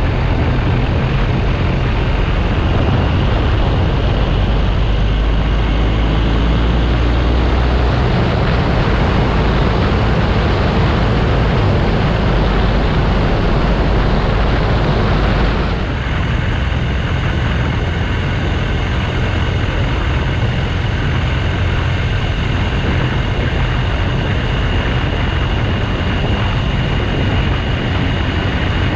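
BMW R1200GS Adventure's boxer-twin engine running under way, mixed with a heavy rush of wind noise. About halfway through, the rushing noise drops off suddenly while the engine rumble carries on.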